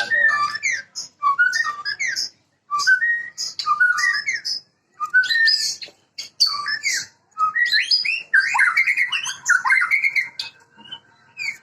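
White-rumped shama (murai batu) singing: short phrases of varied whistles and chirps, one after another with brief pauses, then a longer, denser warbling run about eight seconds in.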